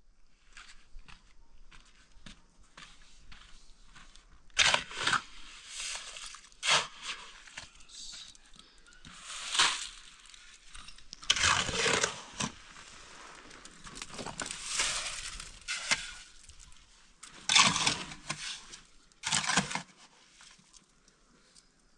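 A shovel scraping and scooping wet cement mortar out of a wheelbarrow and spreading it along a course of concrete blocks. It comes as a run of separate gritty scrapes, with several louder strokes spread through.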